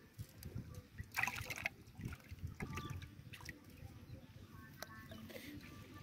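Hands working through a wet nylon cast net to pick out fish: soft rustling and small ticks of the mesh, with trickling water, and a brief louder burst about a second in.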